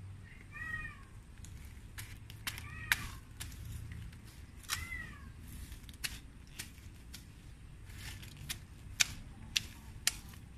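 A cat meows three times in the first five seconds, each call rising then falling. Sharp clicks and snaps of dry grass and weeds being pulled by hand are scattered throughout.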